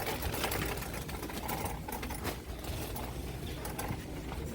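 Store background noise inside a big retail store: a steady low hum with a faint clatter of handling and movement.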